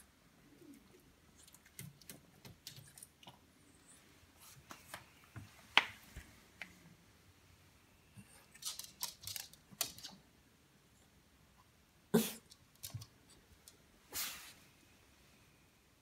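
Small Maltese dogs moving about at a glass door: scattered light clicks and taps of claws on a wooden floor, with two short breathy nasal huffs about twelve and fourteen seconds in.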